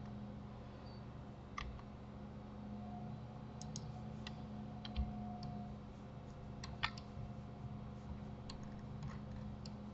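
Scattered computer mouse and keyboard clicks, about ten short sharp ones spread irregularly, over a steady low hum.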